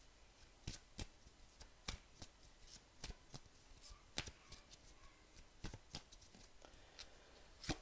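A deck of cards being shuffled and handled in the hands: faint, irregular light clicks and snaps of card edges.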